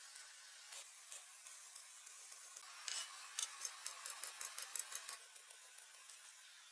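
Faint hiss with a few light clicks, then a quick run of sharp, light clicks about five a second through the middle that stops about five seconds in.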